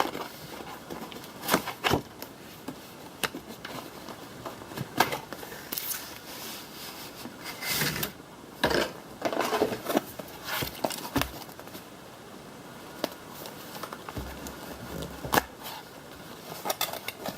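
A cardboard power-supply box being opened and unpacked by hand: irregular scrapes, knocks and clicks of cardboard and its contents, with bursts of rustling packaging.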